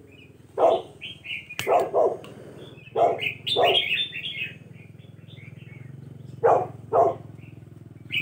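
Loud, short animal calls, mostly in pairs, come several times, with small bird chirps between them. Beneath them runs a steady low roar from a butane torch melting beeswax onto a log bee hive.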